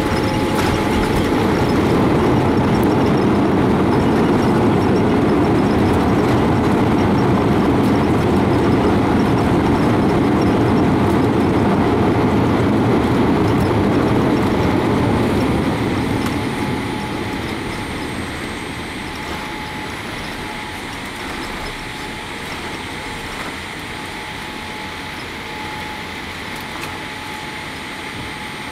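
Boeing 787 cabin during the landing rollout: a loud roar of the engines in reverse thrust and the rumble of the runway. About 16 seconds in it falls away as the engines spool down, leaving a quieter steady hum with a thin engine whine.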